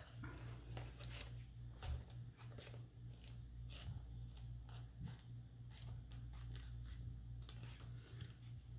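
Quiet room tone: a steady low hum with faint, scattered clicks and rustles.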